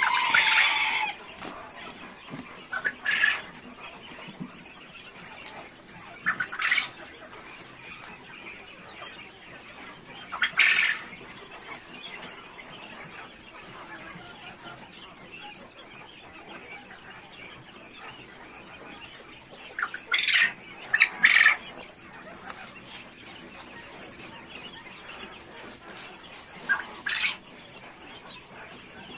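Coturnix quail calling in short, harsh bursts every few seconds, with a cluster of calls about two-thirds of the way through. Under them runs a low rustle of dry feed grain being scooped and mixed in a plastic tray.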